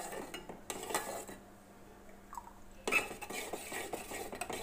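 Metal spoon stirring thin, milky multigrain porridge in an aluminium pot, scraping and clinking irregularly against the pot's sides and bottom. The louder strokes come about a second in and again near three seconds.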